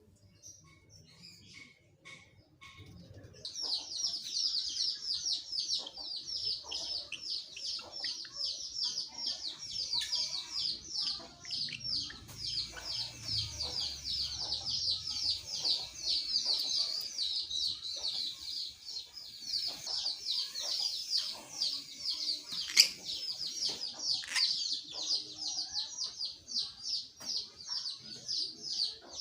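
A caged songbird sings a long, fast, unbroken string of high chirps, starting about three seconds in after a few faint scattered notes. One sharp click sounds near the end.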